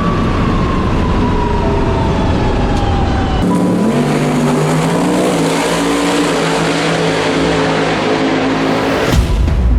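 Drag-racing car engine running hard at full throttle, with a sudden change in pitch about three and a half seconds in, like a gear change. The engine sound cuts off about nine seconds in.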